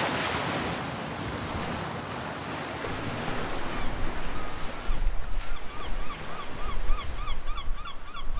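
Sea waves washing in, a steady rushing noise. About four seconds in, an electronic music track starts over it: a short pitched figure repeating about three times a second, with deep bass joining a second later.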